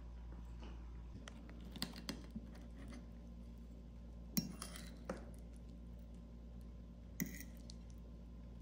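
Metal fork clinking against a ceramic plate: a handful of short, sharp clinks, the loudest about four seconds in.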